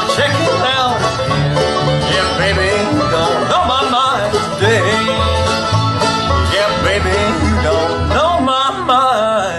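Live bluegrass band playing: fiddle, five-string banjo, acoustic guitar and an upright bass walking a steady pulsing bass line.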